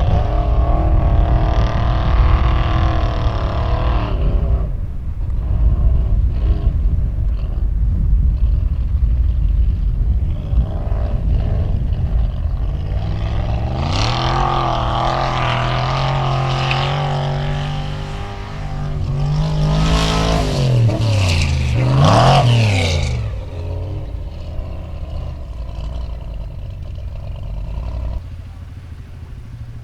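Willys CJ5 off-road racer's engine revving hard, its pitch climbing about a third of the way in and staying high, then falling and shooting back up twice a little past the middle. A heavy low rumble runs underneath.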